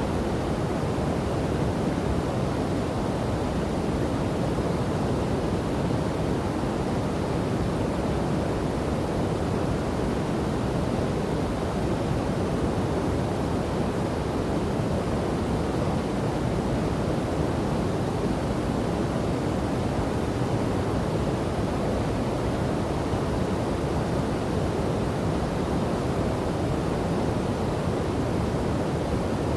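Rushing water of a river and waterfall: a steady, even rush with no breaks, deepest and strongest in the low and middle range.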